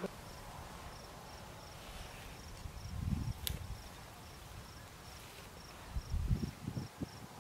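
An insect chirping steadily in the grass, about three short high chirps a second, with low gusty rumbles about three seconds in and again near the end.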